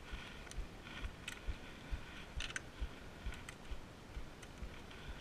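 A new stainless steel inner cable being unwound from its coil: light, irregular clicks and rustling as the wire is handled. Under it, a low thud repeats about twice a second.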